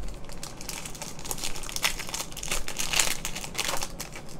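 A trading card pack's foil wrapper being torn open and crinkled by hand: a run of crackling rustles that grows busiest in the second half.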